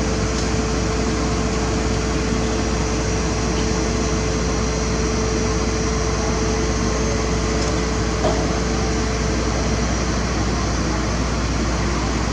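Heavy diesel engine running steadily, with a constant low rumble and an even hum.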